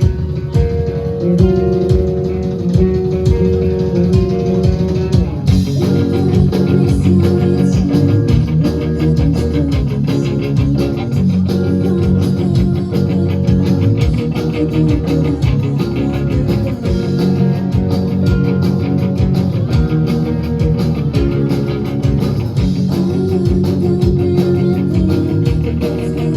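Rock band playing live, electric guitars, bass guitar and drum kit, in an instrumental passage without singing; the sound fills out with brighter cymbal-like high end about five and a half seconds in.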